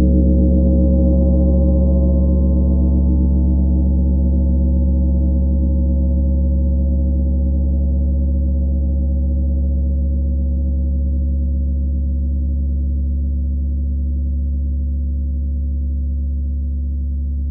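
A 32-inch Tree of Life gong ringing out after a single mallet strike: a strong deep tone with many overtones above it. The higher overtones die away over the first several seconds while the deep tone sustains, fading only slowly.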